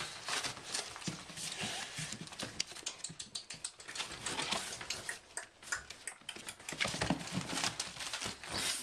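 Bull terrier puppies scrabbling about on newspaper: a busy, irregular patter of clicks and rustles from their paws and claws on the paper.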